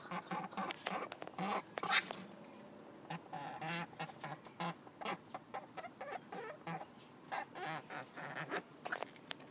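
Californian doe rabbit making a run of short, irregular hacking noises, the loudest about two seconds in.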